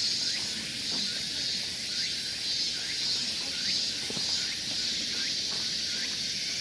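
Insects calling in chorus: a steady high-pitched drone with a still higher layer pulsing about twice a second, and faint short chirps beneath.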